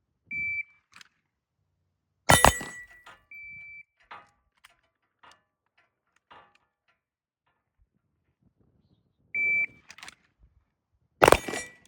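Electronic shot-timer beeps, each followed about two seconds later by a single loud Glock pistol shot that rings off the range. It goes beep, shot, a second quieter beep, then a pause with faint clicks, and near the end another beep and shot.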